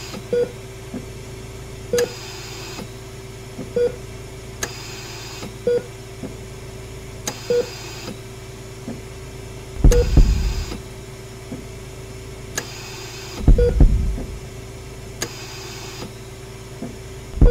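Electronic intro sound design: a steady low hum under a short, regular beep about every two seconds, with three heavy, deep booming hits in the second half, the last right at the end.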